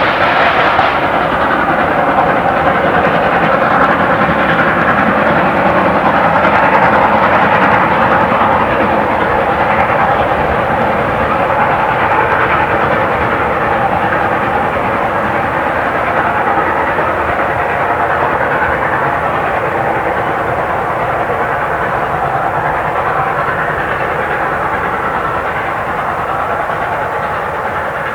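Steam locomotive No. 520, a South Australian Railways 520-class 4-8-4, running with its train: a loud, continuous din of exhaust and wheels on rail that peaks about a quarter of the way in and then slowly fades.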